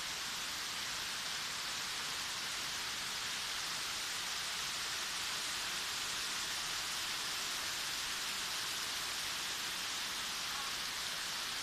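Waterfall rushing: a steady, even hiss of falling water with no breaks.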